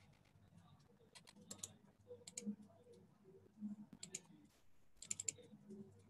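Faint computer keyboard typing and mouse clicks in scattered short runs.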